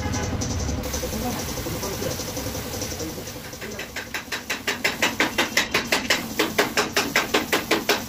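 Mixed workshop noise, then from about four seconds in a rapid, even run of metallic tapping, about four strikes a second, growing louder.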